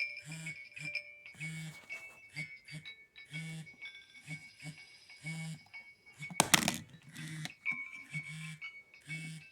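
Nokia mobile phone playing a ringtone melody while its vibration motor buzzes in short pulses of varying length, in time with the tune. About six and a half seconds in there is one loud crackle.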